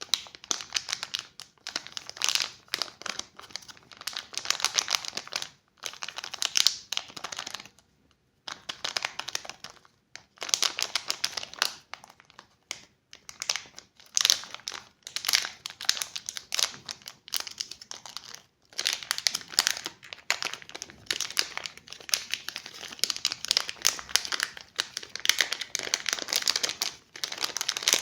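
Candy wrappers being crinkled and unwrapped by hand, a dense crackling in long stretches broken by brief pauses.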